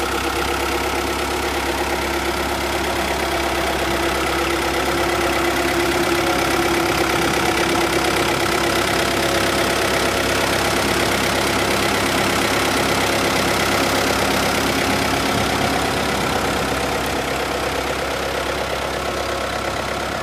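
Tractor engine running steadily, growing a little louder through the middle and easing slightly near the end.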